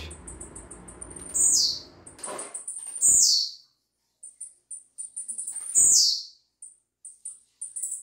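Young blue-black grassquit (tiziu) in brown plumage calling: three loud, sharp notes that slide down in pitch, spaced a second or two apart, among runs of rapid thin high ticks.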